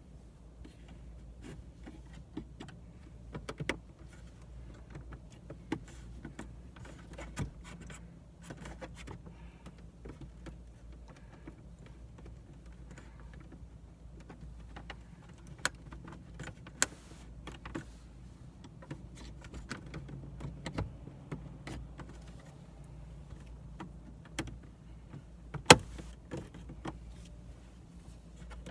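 Tape-wrapped screwdriver prying at a plastic dashboard trim panel of a 2001 Toyota Corolla: irregular clicks, taps and scrapes of plastic, with one sharp, loud click a few seconds before the end.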